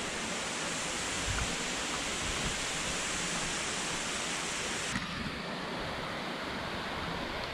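Waterfall: a steady rush of falling water. About five seconds in the sound shifts abruptly and the upper hiss gets thinner.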